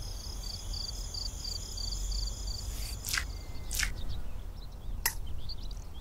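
Countryside ambience of crickets chirping in an even repeating pattern, about three chirps a second, over a low rumble. About halfway through, three short hissing squirts of milk into a metal pail as a cow's teat is squeezed by hand.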